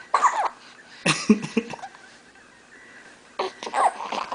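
Six-week-old baby hiccuping: short, sharp catches of breath with little squeaky vocal sounds, coming in three bunches.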